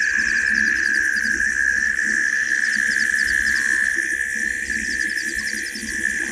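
Night chorus of insects: a steady high drone, with small groups of rapid chirps repeating above it.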